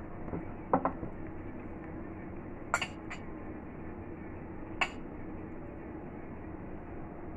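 Metal spoon clinking and scraping against a ceramic bowl during eating: a pair of clinks about a second in, another pair near three seconds and a single one near five seconds, over a steady low hum.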